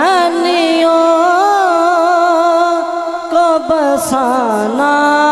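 A young man's solo voice singing an Urdu devotional manqabat in praise of Imam Hussain, drawing the line out into long, ornamented held notes that waver in pitch.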